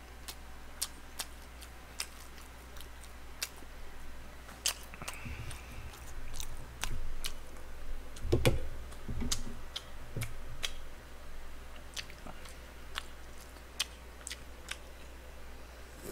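Close-miked chewing of a mouthful of rice and pork kimchi stew, with many small sharp clicks and a few soft low knocks scattered through.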